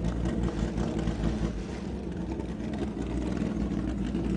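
Several open-wheel Formula racing cars with 2-litre four-cylinder Mountune Duratec engines running at low revs as they roll slowly in.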